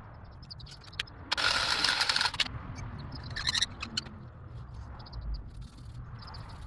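Scattered clicks and clatter of hands-on plumbing work, with a loud hiss lasting about a second that starts about a second and a half in.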